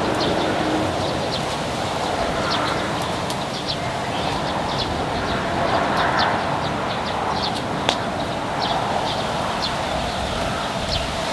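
Steady outdoor noise with short, high bird chirps scattered throughout, and one sharp click about eight seconds in.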